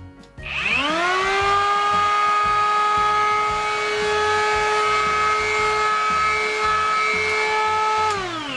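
Parkside PHA 12 A1 12 V cordless planer run with no load: the motor and cutter head spin up with a rising whine in about a second, hold a steady whine for about seven seconds, then wind down with a falling pitch when switched off near the end. Quite noisy, but the noise is soft.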